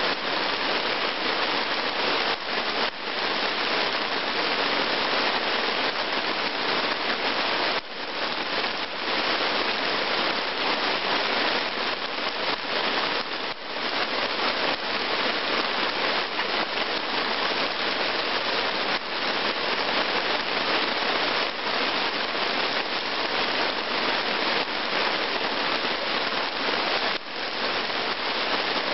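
Heavy rain falling steadily on wet forest ground and puddles.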